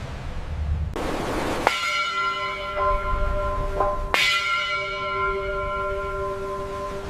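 A large bell struck twice, about two and a half seconds apart, each strike ringing on with long, steady overtones. A short rush of noise just before the first strike, over a low rumble.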